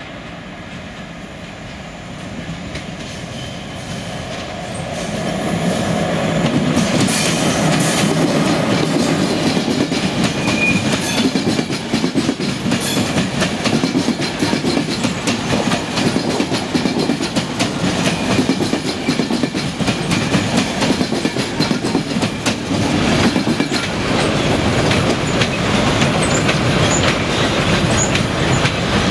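Trains running past close by: a rushing rumble that builds over the first five seconds, then steel wheels clicking rapidly over rail joints, passenger coaches and later freight wagons going by.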